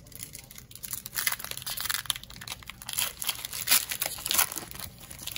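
Plastic wrapper of a Donruss basketball card pack crinkling and tearing as it is opened by hand. The crinkling starts about a second in.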